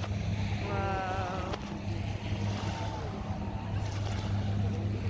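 Boat engine droning steadily, a low even hum, with a brief voice about a second in.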